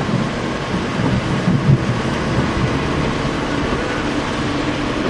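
Steady rumbling road and wind noise of a vehicle on the move, with no clear single event standing out.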